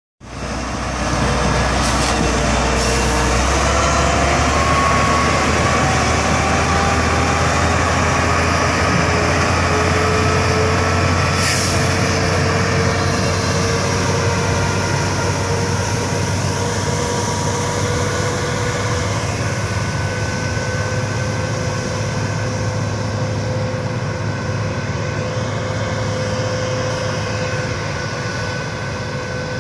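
Diesel engine of a Western Star 4900 water truck running while water rushes out of its spray bars and roof cannon, a steady hiss with a whine over it. The sound fades slowly through the second half as the truck drives away.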